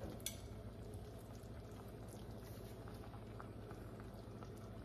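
Faint bubbling of a creamy dill sauce simmering in the pan around the fish fillets, with one light click about a third of a second in.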